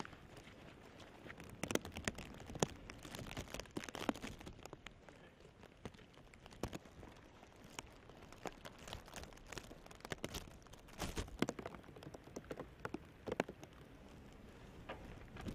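Light rain pattering, with irregular crunching footsteps on wet gravel, many small sharp taps over a faint steady hiss.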